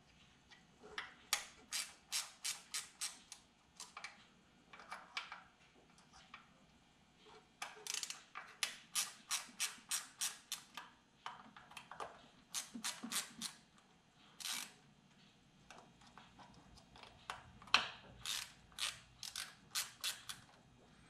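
Small hand ratchet clicking in runs of quick strokes, about three or four clicks a second with short pauses between runs, as it backs out the Torx screws of a fuel pressure regulator.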